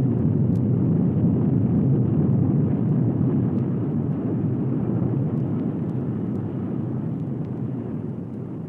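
Bomb explosion sound effect: a deep, continuous rumble after the blast that slowly dies away.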